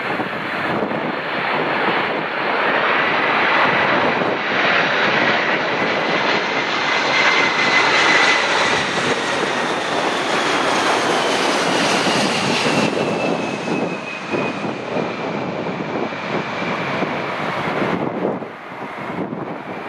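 Boeing 747-400 freighter's four turbofan engines on low final approach as the jet passes close by. It makes a steady, loud roar, with a high whine that drops in pitch as the aircraft goes past.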